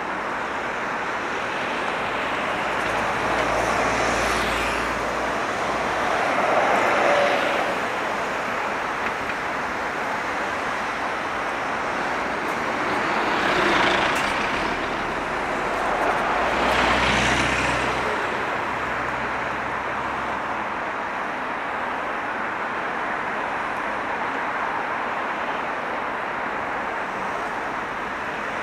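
City street traffic: a steady hum of road noise with four vehicles passing close by, two in the first third and two around the middle, each swelling and fading over a couple of seconds.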